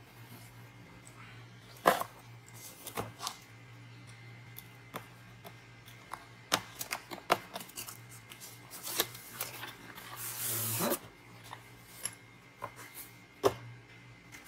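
A cardboard box being handled and opened: scattered taps, knocks and rustles of cardboard and packaging, with a longer scraping rustle about ten seconds in as the padded carry bag is slid out. A low steady hum runs underneath.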